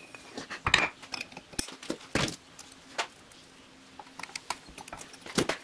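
Small metal parts clinking and clicking: a snap ring being worked into place with pliers over a brass spacer in the bore of an aluminium adapter housing, in a handful of scattered taps.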